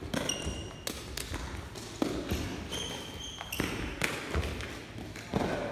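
Lábtoll-labda rally: a feathered shuttlecock kicked back and forth over a net, heard as a string of sharp kick impacts and footfalls on a sports-hall floor. Two brief high squeaks come about a third of a second in and again around three seconds in.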